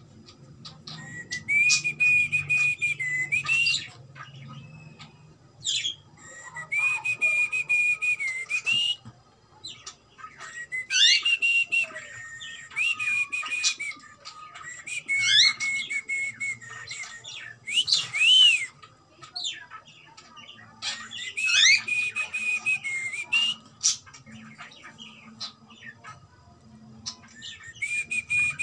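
Cockatiel calling: a string of raspy whistled calls, each held one to three seconds on a steady high note with quick upward sweeps, repeating every few seconds with short pauses between.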